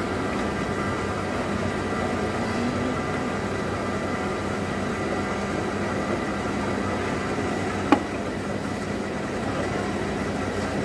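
Electric tea leaf rolling machine running steadily, its motor giving a constant hum with a faint steady whine as it churns green tea leaves. A single sharp click sounds about eight seconds in.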